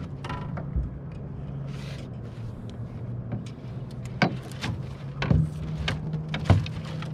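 A boat motor running with a steady low hum, with sharp knocks and clicks on the boat about four, five and six and a half seconds in.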